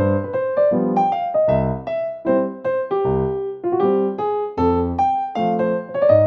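Background music: a piano or electric piano playing a melody over chords, with new notes struck every half second or so.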